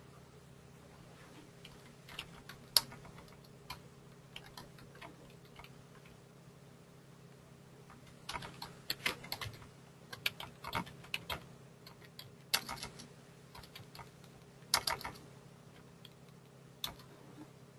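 Typing on a computer keyboard: irregular key clicks in short spurts, sparse at first and busiest in the second half, over a faint steady low hum.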